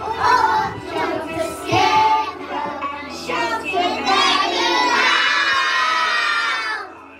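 A group of young children singing together over a recorded backing track; near the end they hold one long loud note, then stop sharply.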